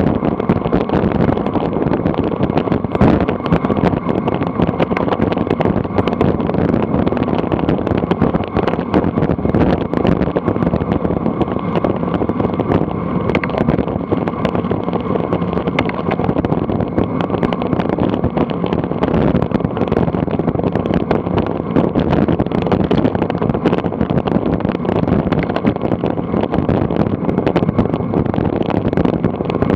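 Steady rush of wind and tyre noise from a bicycle descending fast on asphalt.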